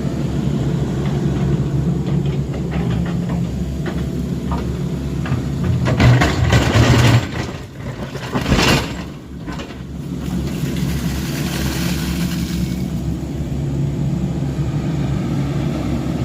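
Heavy earthmoving equipment engine running steadily while digging out pond mud, with a louder surge about six seconds in and a brief rushing noise shortly after.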